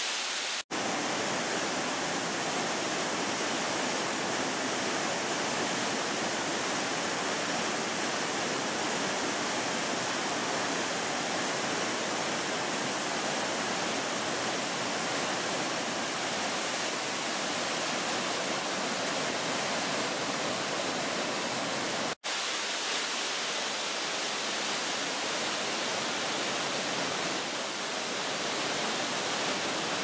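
Waterfall in spate after days of heavy rain: a steady rush of water pouring over rock. The sound cuts out for an instant twice, just after the start and about two-thirds of the way through.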